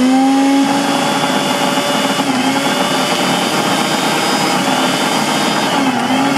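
Pigeon 550-watt mixer grinder motor switched on with a jar locked on: a whine that rises as the motor spins up, then runs steady and high, dipping briefly in pitch near the end.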